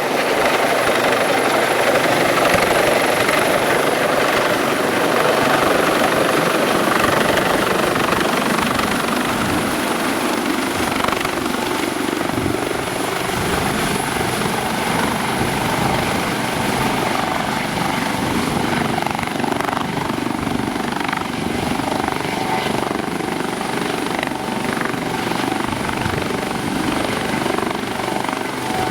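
Eurocopter AS365 Dauphin twin-turbine rescue helicopter running, with its rotor noise and a high steady turbine whine; the sound eases slightly after about eight seconds.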